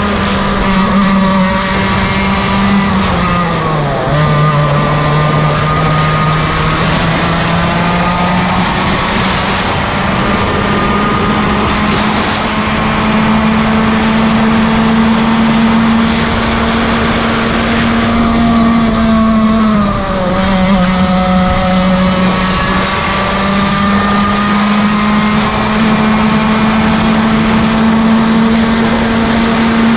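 Yamaha KT100 two-stroke kart engine running at high revs. The revs drop sharply twice, about four seconds in and again around twenty seconds, then climb steadily back up as the kart slows and pulls away again.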